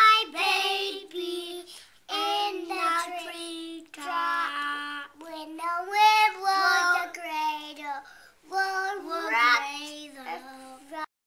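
A young child singing in a high voice in short phrases, some notes held long; the singing cuts off abruptly near the end.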